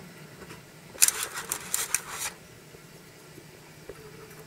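Quail eggs and a wire-mesh incubator tray handled by hand: a quick flurry of light clicks and rattles about a second in, lasting just over a second.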